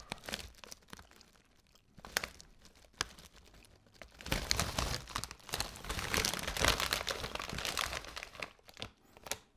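Plastic crisp bag of Lorenz Crunchips crinkling as it is handled and turned over in the hands. There are short rustles about two and three seconds in, then a longer, louder stretch of crinkling from about four seconds in until near the end.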